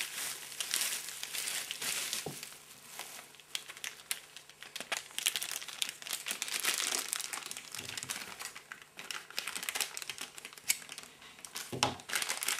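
Plastic packaging crinkling and rustling as it is handled and unwrapped, with scattered small clicks.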